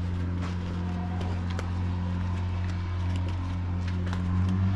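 Flip-flop footsteps clicking and slapping irregularly on rock steps while climbing down, over a steady low drone from an unseen engine or machine.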